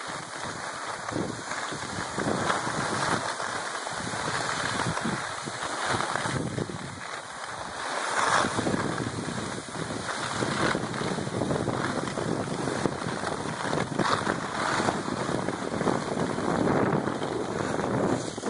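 Wind rushing over the microphone together with the scrape of skis sliding on snow during a downhill run: a steady rushing noise that swells and eases unevenly.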